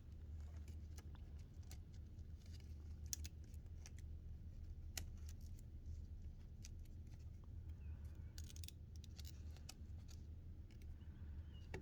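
Scattered light clicks and taps of small laptop parts being handled while a ThinkPad's internal connections are checked, over a steady low hum.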